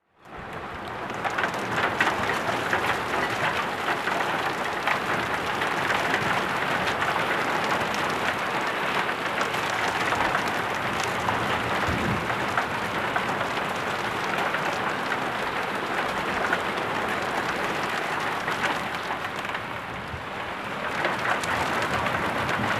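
Heavy thunderstorm rain falling on leaves and stone paving: a dense, steady hiss full of sharp drop hits.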